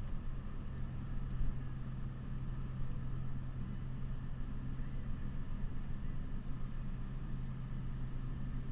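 Steady low mechanical hum of the refrigeration equipment in a walk-in dairy cooler, with one constant low tone.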